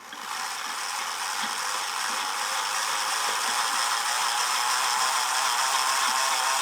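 A 1940s Mantua Camelback HO model steam locomotive running on track, its open-frame motor and gears whirring and rattling. The sound starts suddenly and grows a little louder over the first seconds.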